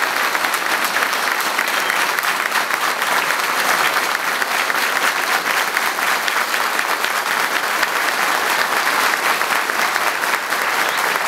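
A large seated crowd applauding, many hands clapping in a steady, unbroken stream.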